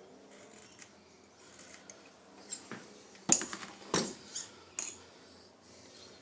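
Steel scriber scratching layout lines on a metal block coated in blue layout fluid, then three sharp metallic clacks as steel measuring tools are handled and set down, the loudest about three seconds in.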